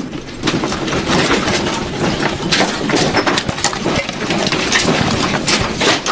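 Furniture and objects on a desk rattling and clattering under violent earthquake shaking: a dense, continuous run of knocks and bangs.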